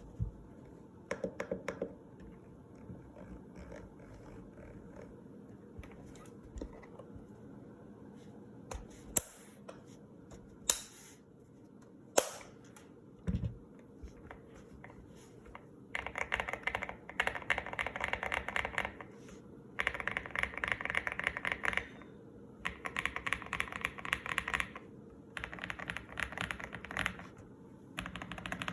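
Custom GMK67 mechanical keyboard with lubed KTT Kang White linear switches, a tape-modded PCB and cotton dampening, being typed on. A short burst of keystrokes near the start and scattered single clicks with one dull knock, then from about halfway fast typing in runs of a couple of seconds with brief pauses.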